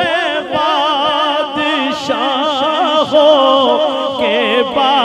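A male naat reciter singing a long, wavering melismatic phrase, his voice swelling and bending around held notes.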